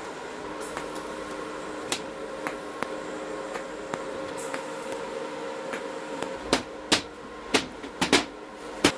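Scattered light clicks over a steady hum, then a cluster of five or six sharp knocks in the last few seconds.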